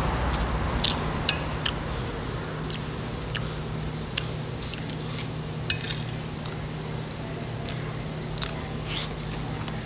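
Metal spoon clinking and scraping on a ceramic plate in short scattered clicks while someone chews food, over a steady low hum.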